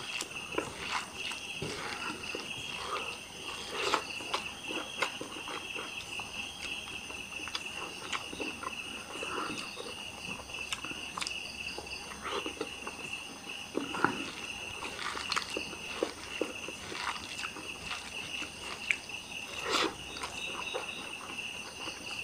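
Close-up eating sounds as rice is eaten by hand: irregular wet chewing and smacking clicks. Under them, crickets chirp in a steady high drone.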